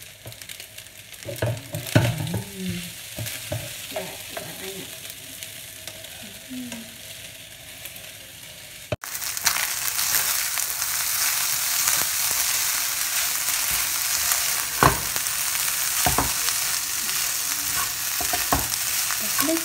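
Fried rice sizzling in a nonstick frying pan while a spatula stirs and scrapes it, with occasional knocks of the spatula against the pan. The sizzling jumps much louder about halfway through.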